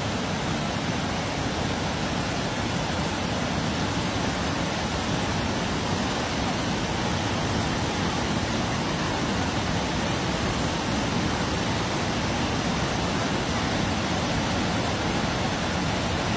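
Floodwater rushing in a fast, muddy torrent: a steady, unbroken noise.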